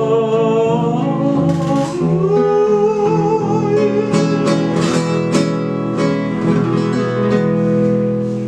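Classical nylon-string guitar strummed through a closing passage, a run of strummed chords in the middle, then a last chord left ringing and slowly fading near the end.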